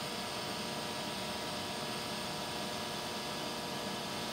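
TIG welding arc from a 1980s Miller EconoTwin welder burning steadily as a bead is laid with filler rod: an even hiss with a faint hum under it.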